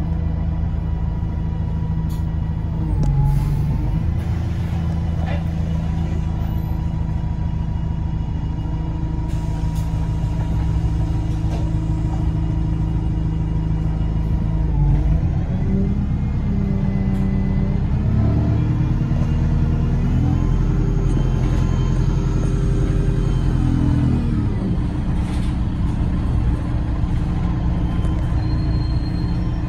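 Double-decker bus engine and driveline heard from the upper deck: a steady drone for the first half, then from about halfway the pitch climbs in steps as the bus pulls away and works up through its gears.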